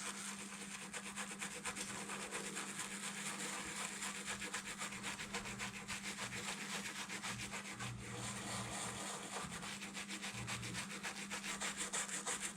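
Small toothbrush scrubbing a soldered circuit board wet with isopropyl alcohol in rapid, even back-and-forth strokes, cleaning off solder flux residue.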